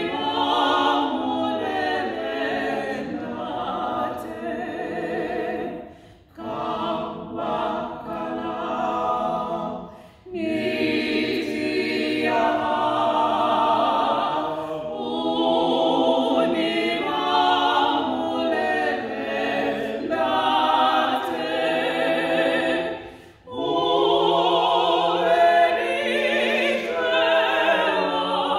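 A small vocal group of two women and two men singing a church song a cappella in harmony, with short breaks for breath between phrases, three times.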